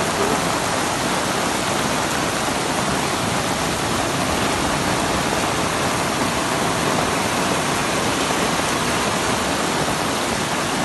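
Heavy downpour together with floodwater rushing along a street, heard as a steady, loud rushing hiss that does not let up.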